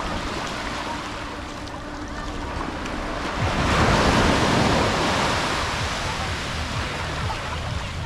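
Sea waves on the shore: a steady wash of surf that swells into a loud breaking wave about three and a half seconds in, then slowly drains away.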